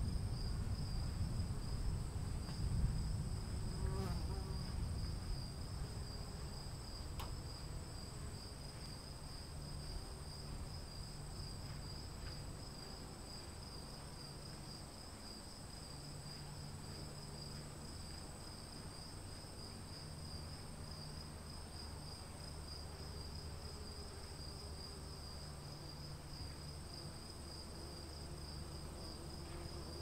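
A steady, high insect chorus, one trill pulsing rapidly, runs over the ambience of an afternoon thunderstorm. A low rumble of distant thunder dies away over the first six seconds or so, and a faint low rumble stays underneath.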